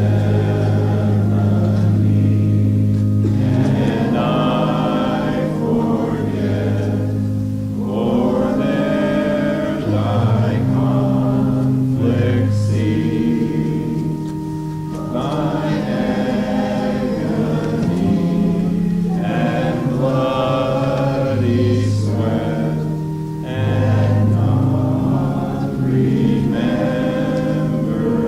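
A congregation singing a hymn together in phrases, over an accompaniment that holds long, steady bass notes.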